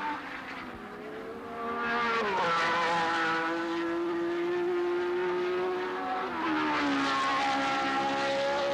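High-revving 1969 Tasman Formula single-seater racing engines passing along a wet straight, each engine note holding a steady pitch and then dropping sharply, about two seconds in and again about six seconds in, over the hiss of tyres throwing up spray.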